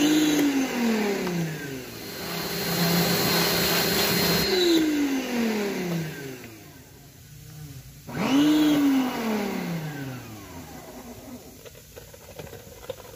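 Electric pressure washer motor starting with a quick rising whine and winding down when the trigger is released. It starts right at the beginning, runs steadily for a couple of seconds, winds down about four and a half seconds in, then starts and winds down again about eight seconds in.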